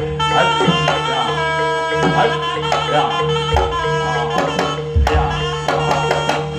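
Live Javanese jaranan gamelan music: kendang hand drums beating busily under sustained ringing tones and a shifting melodic line, with deep low strikes about three and a half and five seconds in.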